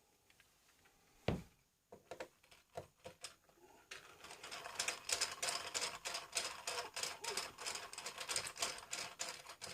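A screwdriver working a case screw out of the Toshiba LX830-11D's plastic back cover: a single knock about a second in, then a long run of quick clicks from about four seconds in.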